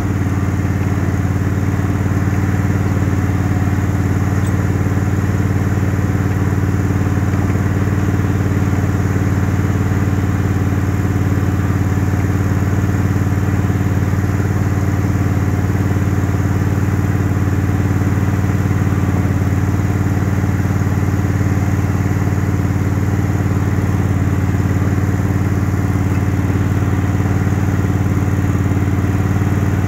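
Craftsman garden tractor engine running steadily at a constant speed while the tractor drives along, with no change in pitch or level.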